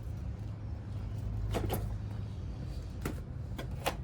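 E-bike being ridden, with a steady low rumble and a few sharp knocks and rattles: a pair about a second and a half in and several more near the end.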